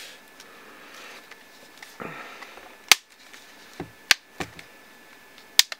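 Plastic Lifeproof fre waterproof case snapping into place around a smartphone as it is pressed shut. There are a few sharp clicks, the loudest about three, four and five and a half seconds in.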